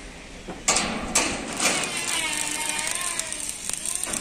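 Hand tool working at the steel truck body's fittings: three sharp knocks about half a second apart, then quicker light clicks near the end.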